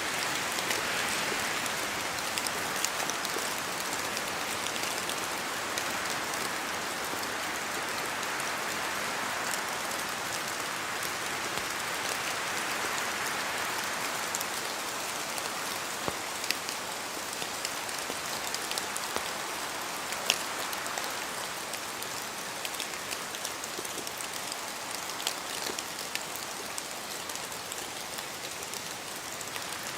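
Steady rain falling through forest trees, with wind making the hiss swell and ease every few seconds, and scattered louder drops ticking close by.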